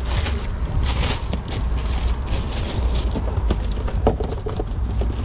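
Tissue paper crinkling and rustling as a sneaker is wrapped and handled in a cardboard shoebox, with the box lid being moved. A steady low rumble runs underneath.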